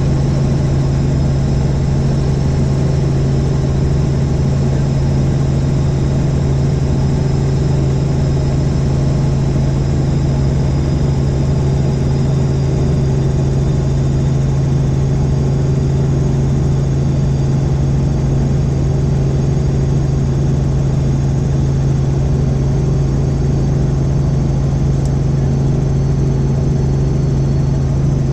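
Helicopter in flight: a loud, steady drone of rotor and engine, with a thin high whine on top.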